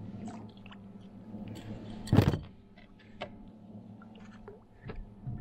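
Gloved hands handling fishing line and tackle: scattered small clicks and rustles, with one louder rustling crunch about two seconds in.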